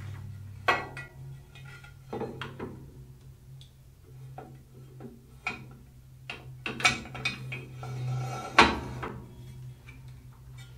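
Metal clatter, clicks and knocks as a Record Power Sabre 350 bandsaw's extruded aluminium rip fence is fitted onto its fence mount and the mount's knob is worked, with the loudest knock about three-quarters of the way through.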